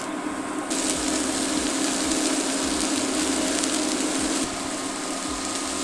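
Sliced vegetables sizzling and crackling on the hot plate of a raclette grill as pieces are laid down; the sizzle gets louder about a second in. Under it runs a steady electrical hum from an induction cooktop.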